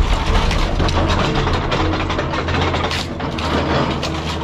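Excavator's car-dismantling claw tearing and crunching through the scrap metal of a wrecked car, with many irregular metallic clanks and crackles. Under them runs the steady low drone of the excavator's engine and hydraulics.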